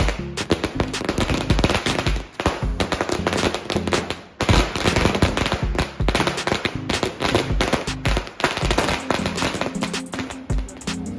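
Firecrackers bursting on the road in a rapid, irregular volley of sharp bangs, with a brief lull about four seconds in, over background music.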